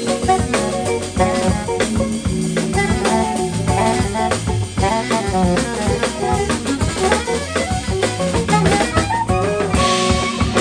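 Live jazz band: alto saxophone playing a melodic line over drum kit, electric guitar and keyboard.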